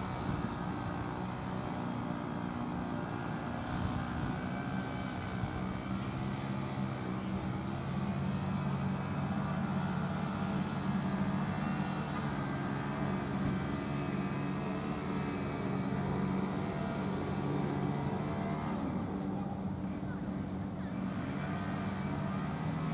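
A steady low engine drone that holds at one level throughout.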